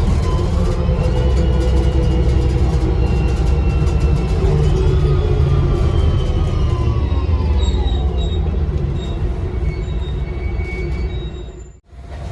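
Bus engine running under way with a high turbocharger whistle, several thin tones sliding slowly down in pitch as the bus eases off. The sound cuts out abruptly near the end.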